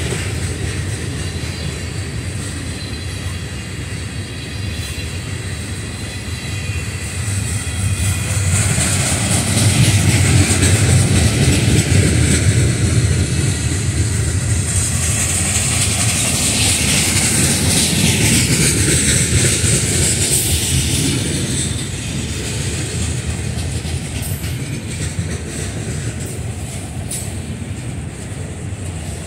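Freight train cars rolling past close by: a steady rumble of steel wheels on rail, louder in the middle, with thin high squealing tones from the wheels at times.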